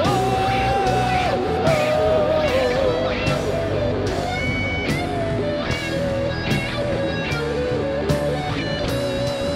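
Live rock band playing an instrumental passage: electric guitars carry a held melody over drums and bass.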